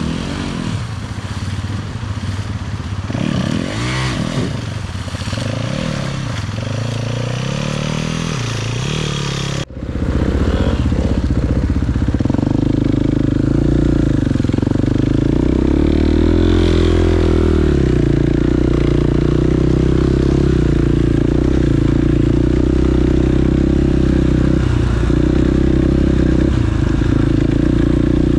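Dirt bike engine revving up and down repeatedly while riding. After a sudden break about ten seconds in, it runs louder at a steadier pitch, with one brief rev up and back down.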